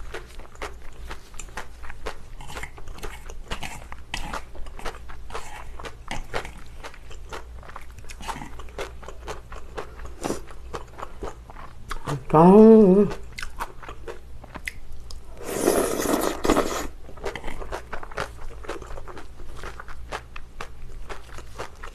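Close-miked chewing of chewy Chinese glass noodles in spicy sauce, a dense run of small wet clicks. About twelve seconds in there is a short hummed vocal sound, then a loud slurp of noodles lasting just over a second.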